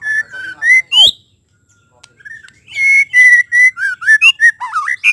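White-rumped shama singing: two phrases of clear whistled notes with a pause of about a second and a half between them, the second a quick run of varied notes that rise and fall.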